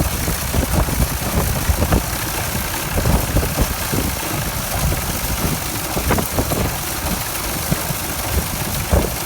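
Massey 701 baler working behind a running tractor while baling barley straw: a steady engine rumble with irregular knocks and clatter from the baler mechanism.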